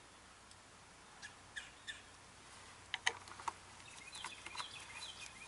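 Faint, scattered bird chirps, with a few soft clicks about three seconds in.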